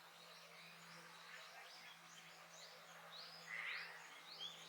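Faint wild bird calls: a scatter of short chirps and whistled notes, with one louder call about three and a half seconds in, over a faint steady low hum.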